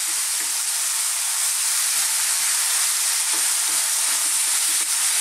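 Chicken and thin-sliced vegetables sizzling in a wok over high heat, a steady hiss, while a wooden spatula stirs and scrapes them around the pan with faint irregular knocks.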